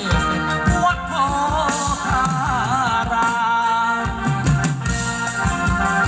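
Live band playing Thai ramwong dance music: a steady drum beat under a wavering lead melody.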